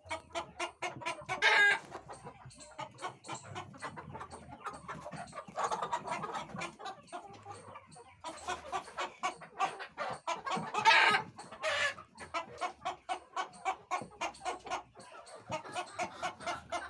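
A flock of chickens clucking continuously, many short clucks overlapping in quick succession, with a few louder calls standing out about a second and a half in and again around eleven seconds.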